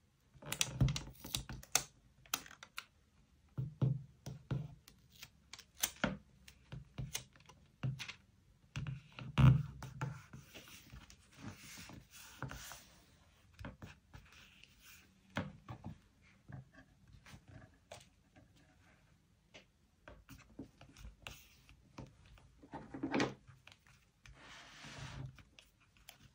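Stationery and paper being handled on a desk: an irregular string of taps, clicks and light knocks, the loudest about nine seconds in, with stretches of paper rustling around the middle and near the end.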